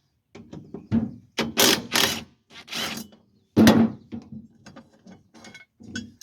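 Ratchet wrench clicking as the mower's blade bolt is worked loose, with several louder metallic knocks and scrapes from the blade and tools being handled.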